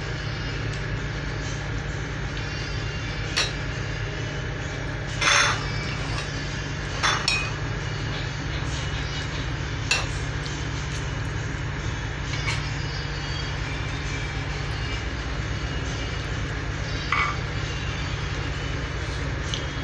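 A spoon stirring thick vegetable-fritter batter in a glass bowl, knocking against the glass in a handful of sharp clinks spread out over the stirring, the loudest about five seconds in. A steady low hum runs underneath.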